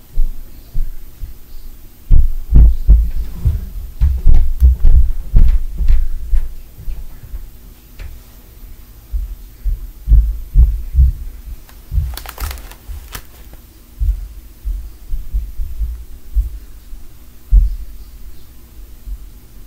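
Heavy, dull thumps of a neighbour stomping on the floor, coming through the building in irregular runs of several a second, thickest in the first few seconds and more scattered later. A short rustle about twelve seconds in, over a steady low hum.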